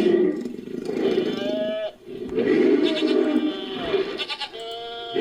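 Designed creature sound effect made from layered goat and sheep bleats: several separate bleating calls with short gaps between them, some falling in pitch at the end.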